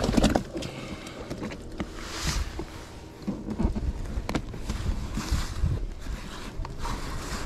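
Inflatable kayak being paddled: the paddle splashes through the water about every three seconds, with small knocks in between over a low, uneven rumble.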